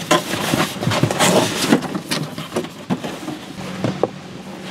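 Cardboard scraping and rustling with a few light knocks as a boxed battery charger is slid up out of its cardboard shipping carton, busiest over the first three seconds and quieter after.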